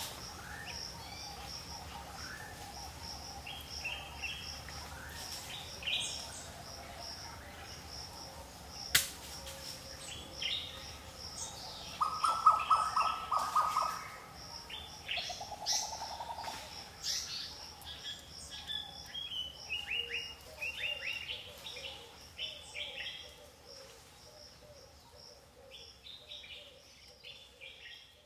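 Several birds chirping and calling. A fast trill about halfway through is the loudest sound, with a lower trill just after, and a faint high note repeats steadily throughout. The calls thin out and fade near the end.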